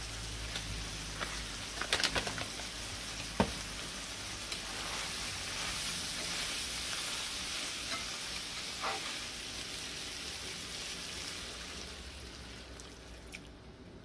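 Seasoned ground beef sizzling in a nonstick frying pan while a spatula stirs it, with a few sharp clicks of the spatula against the pan. The sizzle dies down near the end.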